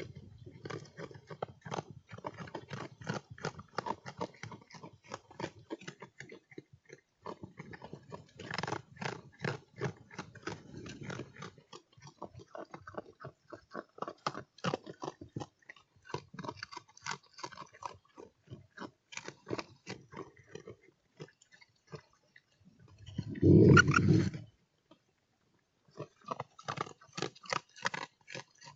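An animal chewing and snuffling close to the microphone, a quick run of crunching clicks with short pauses. Near the end comes a single loud, low bump.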